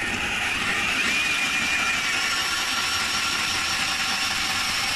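Ryobi P251 brushless cordless drill turning a Mora hand-auger bit through a Kovac Ice Master adapter, drilling a hole in lake ice under load. It makes a steady motor whine over a rough cutting noise.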